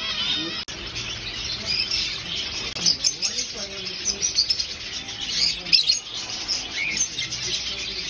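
Many caged small birds, white zebra finches and cockatiels, chirping and tweeting in a dense, continuous chorus of short, high chirps.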